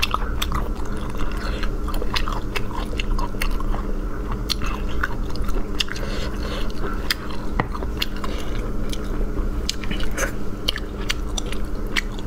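Close-miked eating of cold soy-marinated shellfish: chewing and biting with many small, sharp wet clicks as the meat is pulled from the shells and eaten, over a steady low hum.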